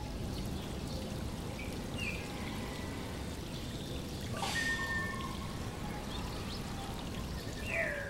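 Steady background noise of an old talk recording: a low rushing hiss, with a few faint short chirps, a sharp click and a brief held tone about halfway through, and a warbling, curving call starting near the end.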